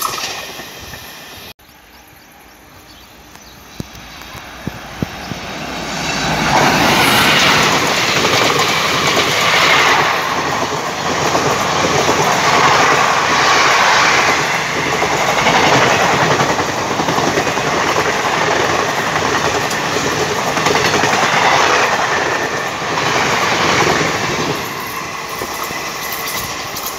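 Express passenger train of Indian Railways passing at speed close by. The noise builds over several seconds, then a long run of coaches rushes past, wheels clattering over the rail joints in a repeating rhythm, and it eases off as the last coach goes by. It opens with a short stretch of another train's noise that cuts off abruptly about a second and a half in.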